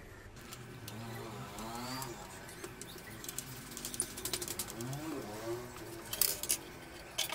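Light clicks and taps of the folding table's steel frame parts and screws being handled during assembly, loudest a little past six seconds in. Low background voices rise and fall twice.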